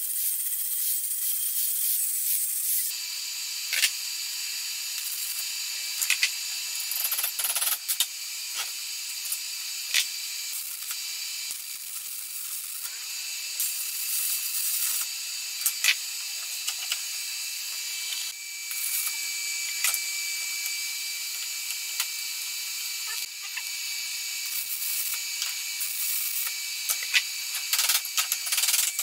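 An angle grinder with an abrasive disc grinding a steel pipe, for about the first three seconds; then stick welding, a steady crackling sizzle full of sharp pops, broken now and then by short pauses.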